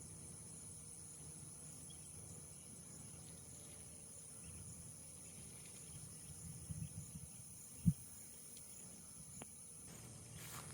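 Faint outdoor ambience: a steady high-pitched insect drone over a low rumbling background, with a single dull thump about eight seconds in.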